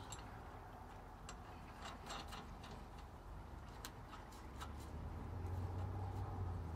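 Faint, scattered light clicks of wheel-stud fitting work at a rear drum-brake hub: the stud, washer and nut being handled. A low hum comes in about five seconds in.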